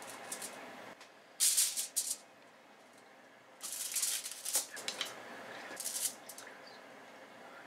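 Aluminium foil and food wrapping crinkling as they are handled, in three short bursts of rustle, the longest about a second.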